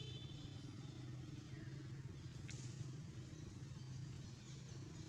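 Steady low motor hum, with a brief high chirp at the start and a single sharp click about halfway through.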